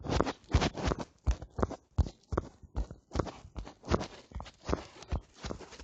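Plastic Rubik's Cube (3x3) being twisted over and over, its layers clacking with each turn, a few sharp clacks a second.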